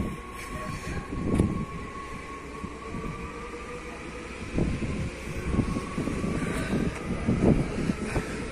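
Train running past, with a steady whine and irregular heavy knocks throughout, the loudest near the start, about a second and a half in, and near the end.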